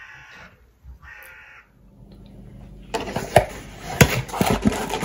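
A crow caws twice in the first second and a half. About three seconds in, a cardboard box of steel M6 bolts is handled: the cardboard rustles and the bolts clink against each other in sharp clicks.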